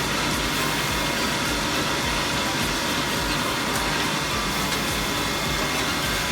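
Woodworking drilling machine running, a steady mechanical noise with a faint constant whine.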